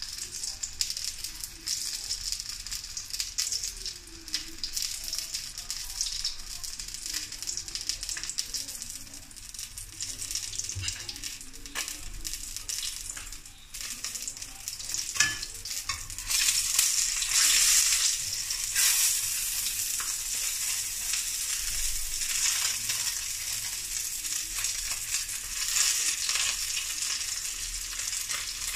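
Threadfin fish fillet sizzling and crackling as it pan-fries in hot oil, with a few sharp pops around the middle. The sizzle gets louder a little past halfway.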